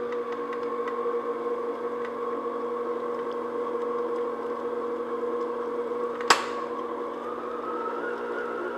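Electric stand mixer running steadily, its motor whining as the beater mixes red food colouring and buttermilk into cake batter. A sharp click comes about six seconds in, and near the end the whine rises in pitch as the mixer speed is turned up.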